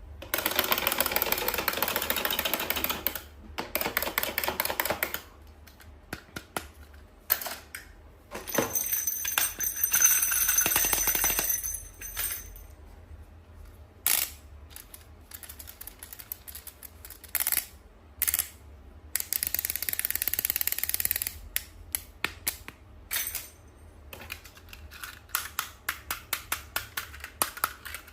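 Toy packaging being handled and opened: several stretches of rustling plastic or cellophane, broken up by many sharp clicks and taps of hard plastic pieces.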